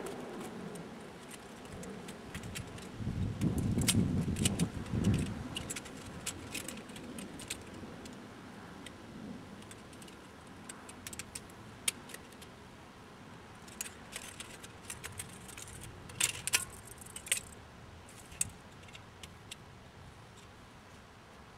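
Wind buffeting the microphone for about two seconds, starting about three seconds in, then scattered light metallic clinks and ticks, most of them bunched together a little past three-quarters of the way through.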